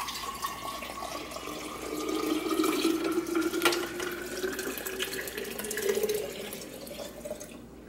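Coconut water poured slowly from a large glass bowl into a big glass mason jar, a steady splashing pour whose tone slowly rises in pitch as the jar fills. A single sharp knock comes about halfway through.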